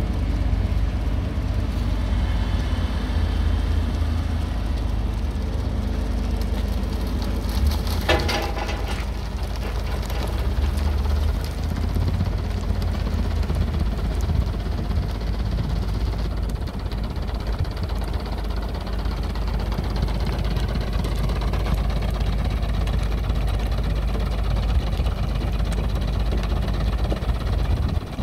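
Kramer 850 compact wheel loader's diesel engine running steadily with a low hum while the bucket is held up and tipped. A brief high squeal comes about eight seconds in.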